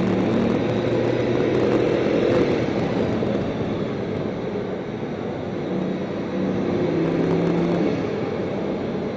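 Bugatti Veyron's quad-turbocharged W16 engine running while the car drives along, heard from inside the cabin together with road and wind rumble. The engine note eases a little about halfway through and comes up again later.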